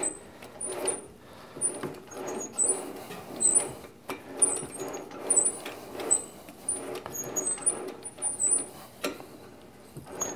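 Lathe chuck turned by hand in repeated strokes, about one a second, driving a 1/4-20 threading die down an aluminum rod: rubbing and light clatter of the chuck and spindle, with short high squeaks over it as the die cuts.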